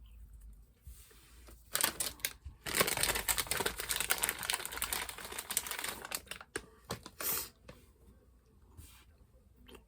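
Plastic sweet wrapper crinkling as it is handled and opened, a dense crackle from about two seconds in that dies away after about seven seconds.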